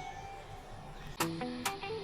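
Background music of plucked notes: a short lull, then new notes begin about a second in.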